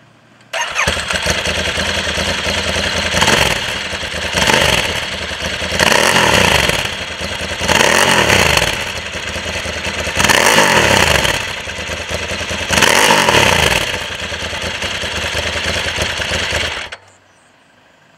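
Sport motorcycle engine revving up and down repeatedly, with about six surges as the revs climb and drop. It starts abruptly and cuts off suddenly near the end.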